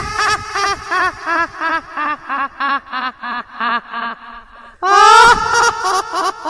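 Horror-effect cackling laugh, high-pitched: a cry breaks into a rapid run of short 'ha-ha-ha' pulses, about five a second, that fall in pitch and fade away. A second loud cackle starts near the end.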